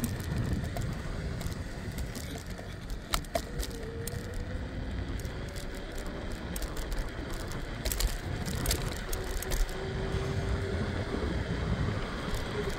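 Riding noise from a scooter in motion: a steady low rumble of wheels on pavement and wind, with scattered clicks and rattles as it goes over bumps, most around three seconds in and again about eight to nine seconds in.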